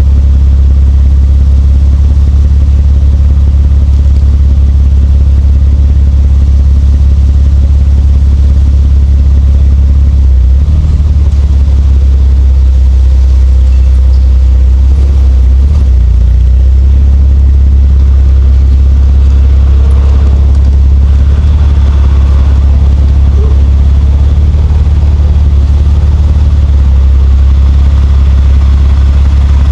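Nissan Skyline R34 GT-T's turbocharged 2.5-litre straight-six running with a steady low drone, shifting slightly in pitch about ten and sixteen seconds in.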